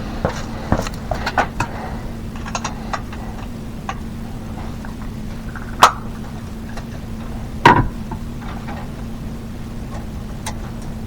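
Small clicks and taps of hands working with tools and electrical parts, with two sharp knocks about six and eight seconds in, over a steady low hum.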